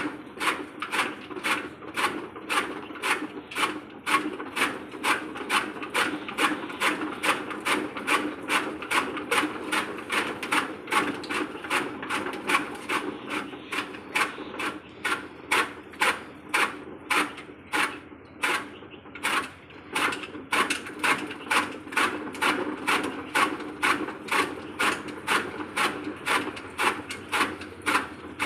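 Hand-cranked chaff cutter chopping green fodder: the flywheel blades cut in a steady rhythm, about two crisp chops a second, over a steady low hum. The chops weaken briefly about two-thirds of the way through, then pick up again.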